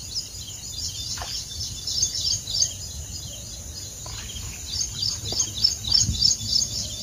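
Birds chirping in quick runs of repeated high notes, with a few short knocks and rustles from movement close by.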